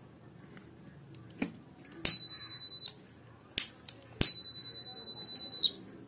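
Small piezo buzzer of a homemade photodiode flame-detector circuit sounding a high, steady beep twice, first for under a second and then for about a second and a half, as the sensor picks up a lighter flame. A few sharp clicks come before the beeps.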